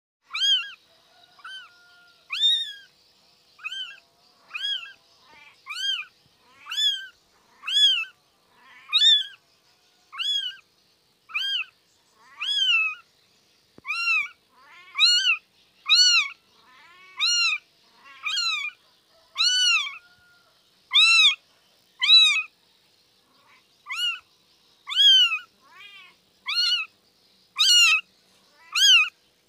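Newborn kitten, its eyes barely open, mewing over and over: short, high, thin calls that rise and fall in pitch, about one a second.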